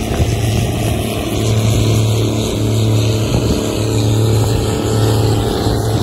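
Gleaner rotary combine running steadily as it harvests wheat: a continuous engine and threshing drone with a low hum.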